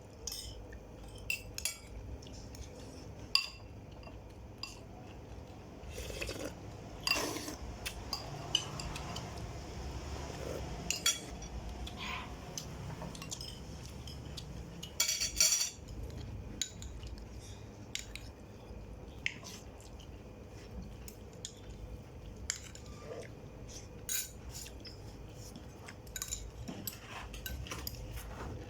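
Spoons and other cutlery clinking and scraping against plates and bowls during a meal, in scattered single clicks with a sharper cluster about fifteen seconds in, over a low steady rumble.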